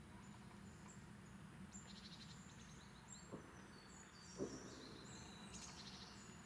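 Faint songbird song, a run of high chirps and trills, over quiet background hiss, with two soft short knocks about a second apart midway.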